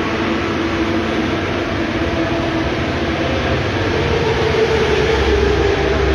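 Motorcycle engine running with a steady drone, its pitch rising slightly about four seconds in.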